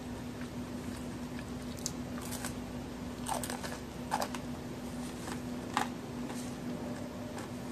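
Biting into and chewing a crisp homemade chocolate-and-raisin cookie: a series of sharp crunches, the strongest around four and six seconds in.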